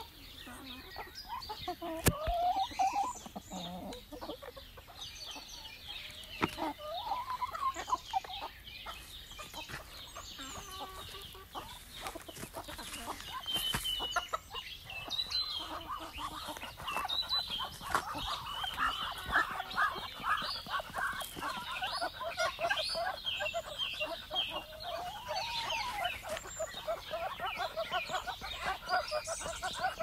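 Chickens clucking in a pen: a few drawn-out calls early on, then a dense run of rapid clucks from about halfway, with higher chirps of other birds throughout.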